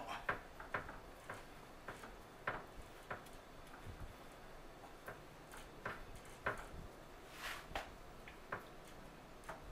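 Faint, irregular light clicks and taps as hands press seasoned flour onto pork chops on a metal sheet pan, with bracelets on the wrists knocking as they work.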